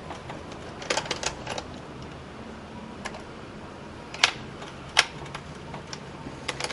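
Screwdriver and small screws clicking against the plastic bottom case of a Dell Inspiron 1525 laptop as screws are taken out. A quick cluster of light clicks comes about a second in, then single sharp clicks, the loudest two about four and five seconds in.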